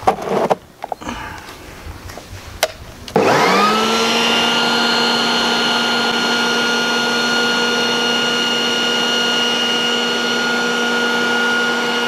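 A few clicks and knocks, then about three seconds in the Garden Gear 1800 W electric push vacuum and blower's motor starts. It spins up quickly to a steady high whine over a rush of air, running in blower mode.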